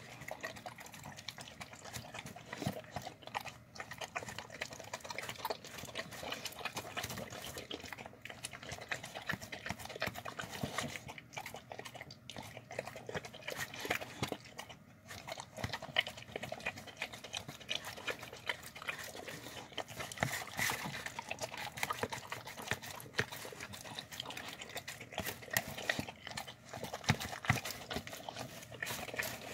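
A dog eating soft, wet food out of a plastic tub at close range: continual irregular wet smacking, chewing and licking.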